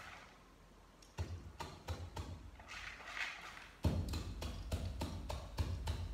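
Wooden pestle pounding in a mortar: a series of dull, regular thuds, about three to four a second, that start about a second in and become louder past halfway.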